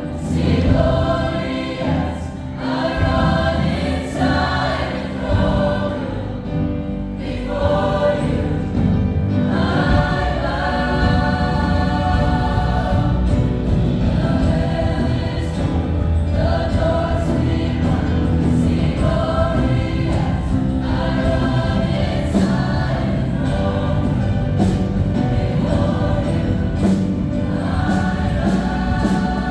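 Choir singing gospel worship music.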